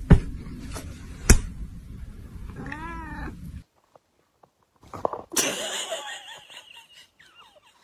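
A cat gives one drawn-out, complaining meow about three seconds in, after two sharp clicks near the start. Later, a burst of rustling noise.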